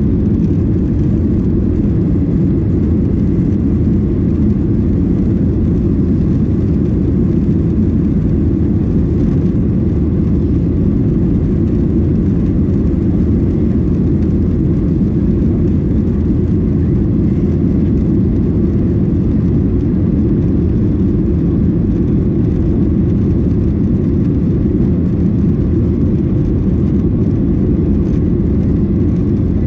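Steady cabin noise of a Boeing 737-800 in flight: the even, low rumble of its CFM56 engines and airflow heard inside the cabin, unchanging throughout.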